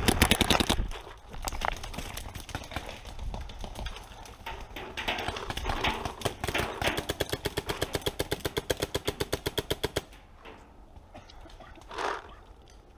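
Paintball markers firing rapid strings of shots, ending in a steady run of about seven shots a second that stops abruptly about ten seconds in.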